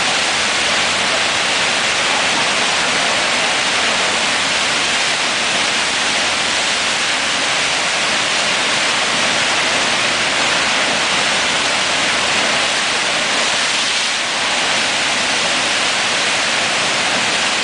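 Loud, steady rush of churning whitewater from the Eisbach river's standing surf wave.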